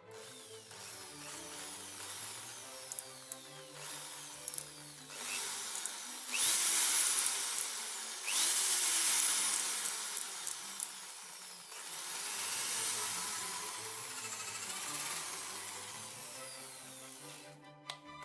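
Ryu electric drill running free in a speed test: the motor whine rises and falls as the trigger is squeezed and eased, at full speed for several seconds in the middle, then winds down and stops near the end.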